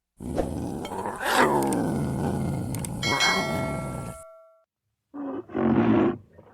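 A big cat roaring: one long, rough roar of about four seconds that rises in pitch and then falls away. After a short pause, a second, shorter animal call comes near the end.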